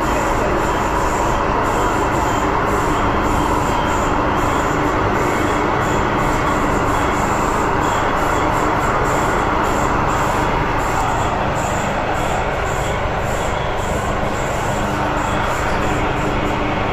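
MTR Tsuen Wan line M-train electric multiple unit running at speed, heard from inside the car: a loud, steady rumble and rush of wheels on rail. About ten seconds in, a whine falls steadily in pitch.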